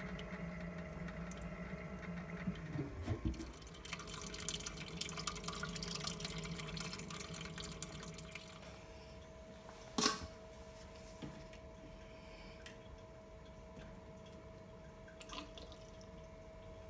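Wort recirculating in a BrewTools B80pro all-in-one brewing system, splashing and dripping from the recirculation pipe onto the mash's grain bed over a steady hum. The splashing is strongest in the first half, with one sharp clack about ten seconds in and a couple of light knocks after.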